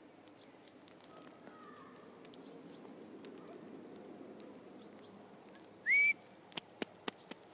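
A person's short rising whistle about six seconds in, the loudest sound, over faint small bird chirps. A few sharp clicks follow the whistle.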